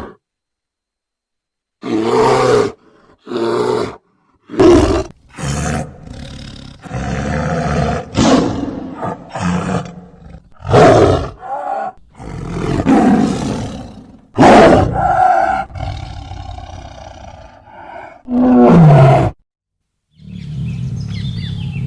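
A large wild animal roaring in a run of separate calls of varying length, with short silent gaps between them; one call near the end falls in pitch.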